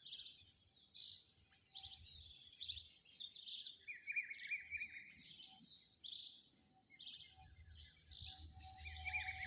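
Birds calling with short repeated trills over a steady high-pitched insect buzz, at dawn in the open countryside. A faint low rumble joins in the last two seconds.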